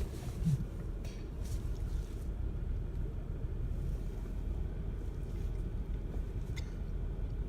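1996 Chevrolet Lumina's 3.1-litre V6 idling with a steady low rumble, running rough from a misfire on cylinder 1 (code P0301).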